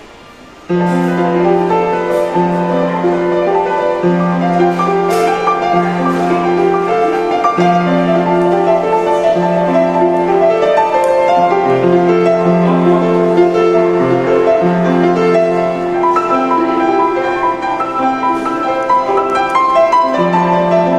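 Upright piano being played, starting about a second in: held low notes repeat under a melody.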